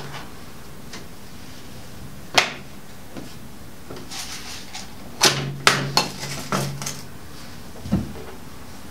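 Light clicks and taps of sewing things being handled and set down on a table: one sharp click about two seconds in, a quick cluster of clicks a little past the middle, and a duller knock near the end.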